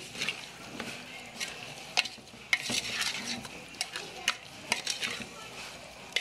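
Metal spoon stirring chunks of beef in an aluminium pot, with repeated scraping and sharp knocks against the pot over a steady sizzle of the meat frying.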